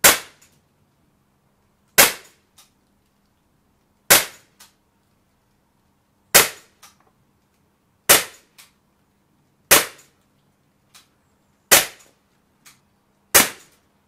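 Blowback CO2 air pistol firing eight shots about two seconds apart, each a sharp crack followed by a faint click about half a second later.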